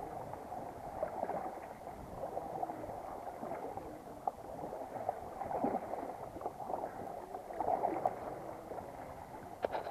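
Kayak paddling: the paddle blades dipping and splashing and water sloshing along the hull in an uneven wash, with a few short sharp clicks near the end.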